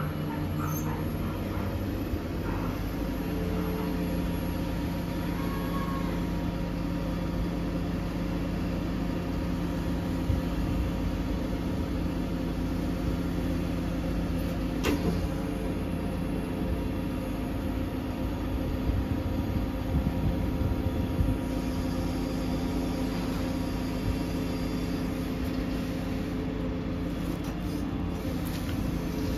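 Volvo FE 320 lorry's diesel engine running at a steady speed to drive the hydraulics of its Hiab loader crane as it lowers a bulk bag, with a single sharp click about halfway through.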